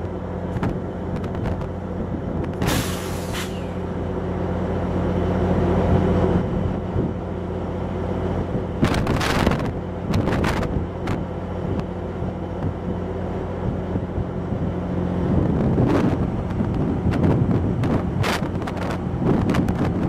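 Amtrak passenger train standing at a platform, its diesel locomotive running with a steady low hum. Short, loud blasts of air hiss from the train's air system come about three seconds in and again around nine to ten seconds in, with scattered clicks later on.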